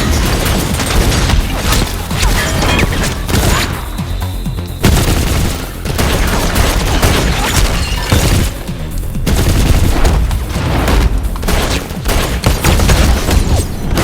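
Rapid, dense gunfire with booming hits, layered over loud action music.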